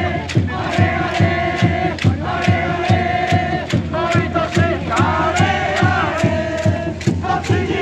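Football supporters chanting a song in unison, sustained and loud, over a steady drumbeat of about two strokes a second.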